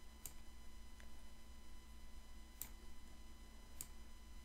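Faint computer mouse clicks, three or four single clicks spaced about a second or more apart, over a low steady electrical hum.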